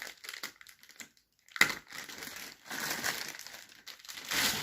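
Plastic packaging crinkling and rustling as a computer satellite speaker is handled, with scattered clicks and one sharp knock about one and a half seconds in.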